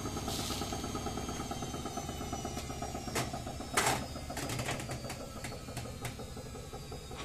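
Edesa front-loading washing machine humming steadily while its rotary programme selector knob is turned to set a respin, giving a knock about four seconds in and then a quick run of ratcheting clicks.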